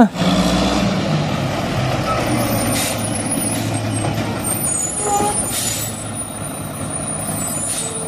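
Rear-loader garbage truck's diesel engine running steadily, with two short hisses of air about three and five and a half seconds in.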